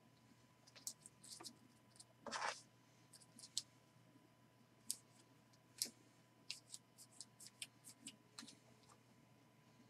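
Faint clicks and flicks of trading cards being sorted and flipped through by hand, with one brief rustle of cards sliding about two seconds in; otherwise near silence.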